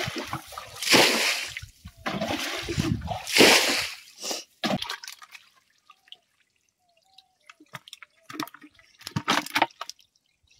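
Water being bailed out and thrown, with four loud splashes about a second apart. After that come scattered drips and small trickles as the water runs off.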